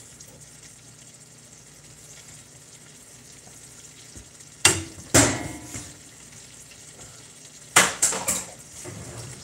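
Crappie and bluegill fillets frying in a pan with a faint, steady sizzle. Two sharp knocks come a little before halfway and three more near the end; these are the loudest sounds.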